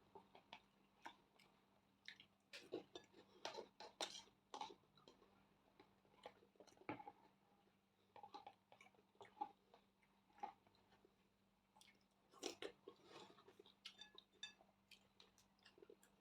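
Quiet, close-miked chewing and mouth sounds of someone eating: irregular wet smacks and crunchy clicks, with busier runs a few seconds in and again about twelve seconds in.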